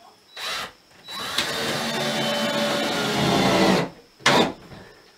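Power drill driving a screw to fasten a vinyl window into its opening: a short burst, then about three seconds of steady running, then another brief burst.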